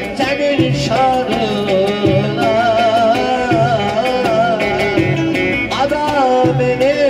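Live Turkish folk dance music played loud through a PA: an electric bağlama and a Korg Pa1000 arranger keyboard with its drum-and-bass rhythm, and a man singing an ornamented melody.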